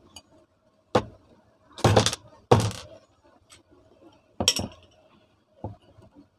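Metal knocks and clinks of tools and ceiling fan parts being handled during disassembly. There is a sharp knock about a second in, two short rattling clatters a second later, and another knock about halfway.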